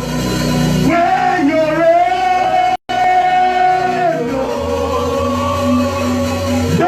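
Worship song: a voice singing long, held notes over instrumental backing with a low sustained bass. The sound drops out completely for an instant about three seconds in.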